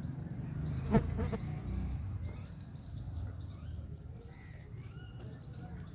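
A short, loud call from a farm animal about a second in, over a steady low rumble, with faint bird chirps later.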